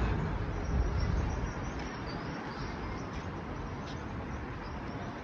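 Road traffic noise with a low rumble, louder for the first second and a half, then a steady even hum.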